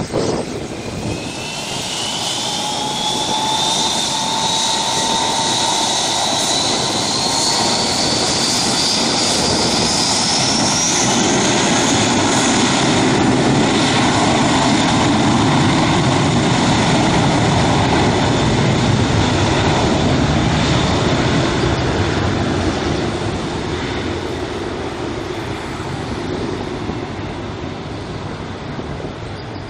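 Aircraft turbine engines: a high whine rises steadily in pitch over the first ten seconds or so while the engine noise grows loud, holds for several seconds, then fades over the last several seconds as the aircraft moves off.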